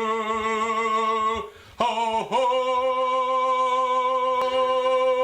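A man singing long held notes in an operatic style, with vibrato: the first note breaks off about a second and a half in, and after a short gap a second note is held steadily through the rest.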